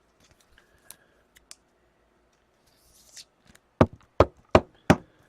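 A few faint clicks, then four sharp knocks on a hard surface in quick succession, about three a second, near the end.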